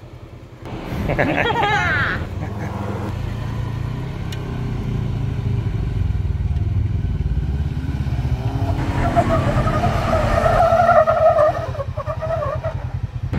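Jeep Wrangler engine working under load, pulling the Jeep up a steep sandstone climb. It gets louder about nine seconds in, then eases off near the end.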